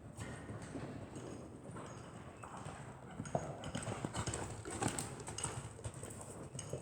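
Horse hooves clip-clopping: an uneven run of hoofbeats, louder from about halfway through.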